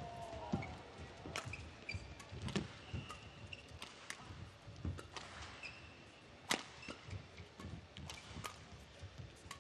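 Badminton rally: sharp cracks of rackets striking the shuttlecock about once a second, with short squeaks of court shoes between the shots.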